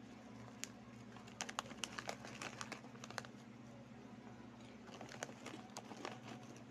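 Plastic snack bag crinkling as a hand reaches in, and crunchy Chick Boy corn snacks being chewed, in scattered sharp crackles, thickest between about one and a half and three seconds in and again around five to six seconds. A low steady hum runs underneath.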